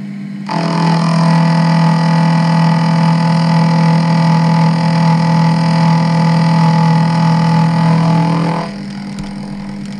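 A small electric motor starts about half a second in, runs at a steady pitch for about eight seconds and stops abruptly, over a steady lower hum.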